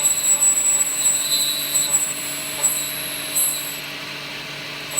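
Metal lathe running with the spindle turning, with a steady high whine and an uneven scraping as the cutting tool is fed into the work.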